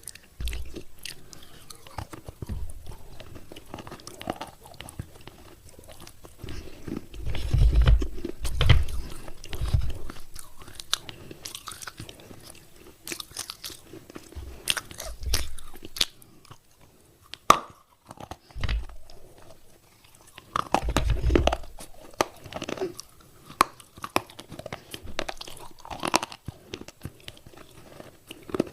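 A person biting and chewing pieces of wet clay pot close to the microphone: irregular crisp cracks and crunches, with heavier, muffled chewing about a quarter of the way in and again about three-quarters through.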